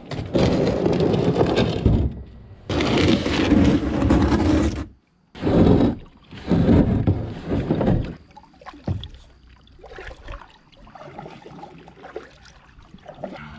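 Kayak hull scraping and dragging over a concrete boat ramp during launch, in three loud grinding stretches with short breaks. Then quieter water and paddle sounds as the kayak floats free.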